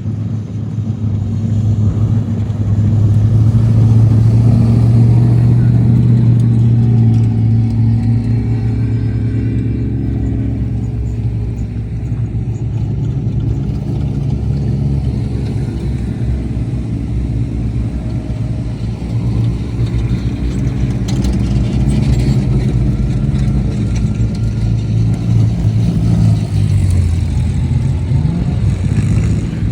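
Off-road race vehicle engines running loudly, a steady engine drone for the first dozen seconds, then shifting in pitch.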